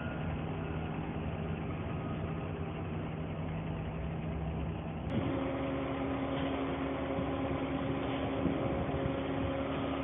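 Heavy diesel engines of a concrete agitator truck and a concrete pump running steadily. About five seconds in the hum changes abruptly to a higher steady tone.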